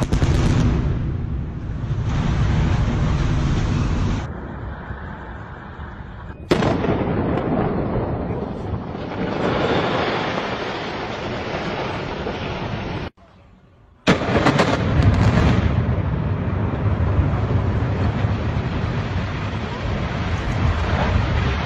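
Controlled demolitions one after another: explosive charges going off and bridges and a tall structure collapsing. The sound comes in three separate stretches, each starting suddenly and running on as a long, heavy rumble.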